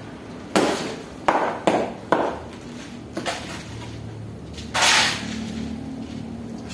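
Masonry work on concrete and hollow blocks: about five sharp knocks and clinks in quick succession, then a longer scraping rush just before the five-second mark. A steady low hum comes in during the second half.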